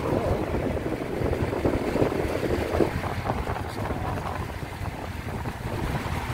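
Wind buffeting the microphone on a moving motorcycle, with engine and road noise underneath.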